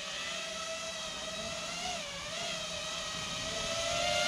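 Small FPV quadcopter's brushless motors (MT2204 2300 kV on a 4S battery) whining steadily as it hovers and cruises slowly, lifting a Blackmagic Micro Cinema Camera. The pitch wavers and dips briefly about two seconds in, then the whine grows louder near the end.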